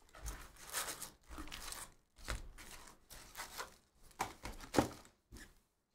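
Foil-wrapped trading card packs crinkling and rustling as hands lift them out of an opened cardboard hobby box and stack them, in a series of short irregular rustles with a sharper one near the end.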